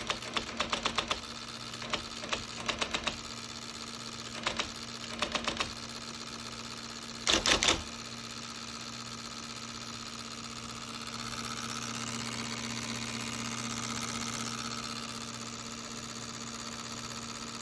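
IBM Selectric II electric typewriter running with its motor humming steadily, and several quick runs of sharp typing strikes in the first six seconds. About seven seconds in comes one louder, denser clatter of the mechanism lasting about half a second, after which only the motor hum continues.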